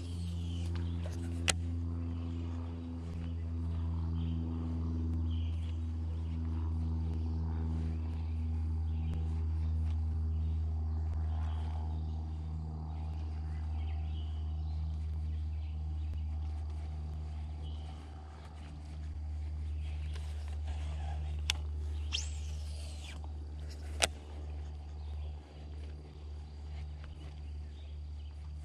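A steady low hum made of several even pitched tones, with faint animal calls and a few sharp clicks on top.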